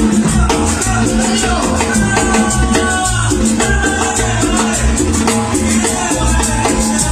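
Loud Latin dance music with a steady beat, bass and shaken maracas.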